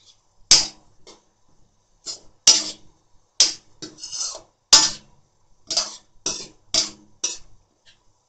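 Metal spatula scraping across a metal wok as chopped cabbage, beans and onion are stir-fried: about a dozen short, sharp scrapes at an uneven pace.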